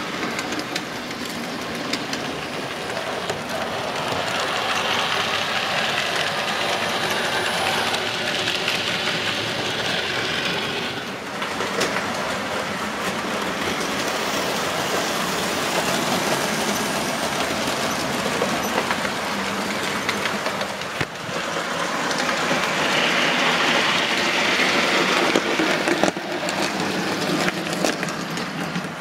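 Several model trains running round a layout: the steady mechanical running of their motors and wheels on the track, dipping briefly about 11 and 21 seconds in.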